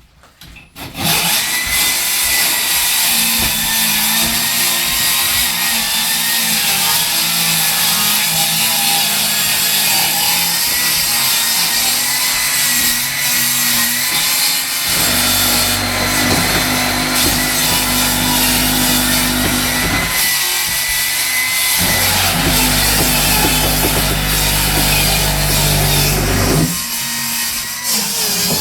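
Low-cost cordless circular saw starting up about a second in and running with a steady high whine, cutting through the boat's fiberglass. About halfway in the sound deepens and grows heavier as the blade bites, with a short break and then more cutting: a low-powered saw that has to be taken slowly.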